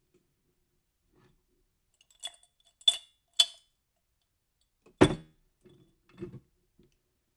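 Three sharp, ringing clinks about half a second apart, then a louder knock with a low thud and a few softer bumps, as of hard objects being tapped and set down.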